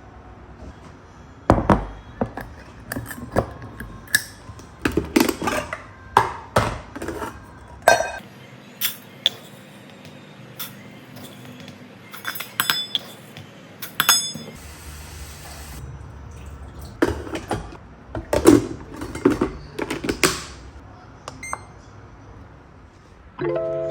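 Kitchenware being handled: dishes, jars and containers clinking and knocking as they are picked up and set down, in irregular bunches over a steady low room hum. Music comes in just before the end.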